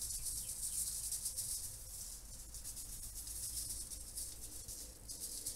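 Seasoning rub shaken from a plastic shaker in quick repeated strokes, a dry rattling hiss of the granules.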